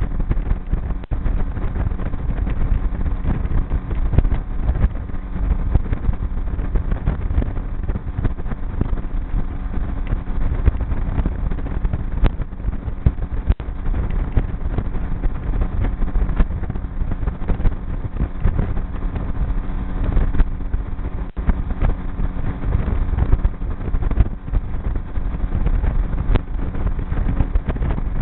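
Small boat's motor running steadily while under way on a river, with water rushing past the hull and wind buffeting the microphone.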